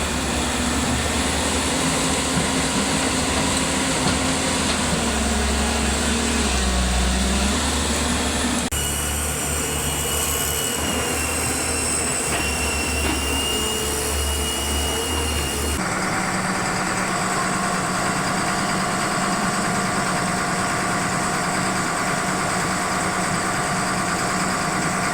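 Diesel engine of a JCB excavator running as it works, the pitch dipping under load about seven seconds in. The sound changes abruptly twice as the shot cuts; the middle part carries a thin, steady high whine over the engine.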